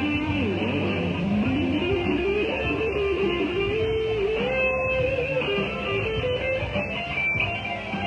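Live blues jam: an electric guitar plays a lead line whose notes glide down and back up in pitch, over steady band accompaniment.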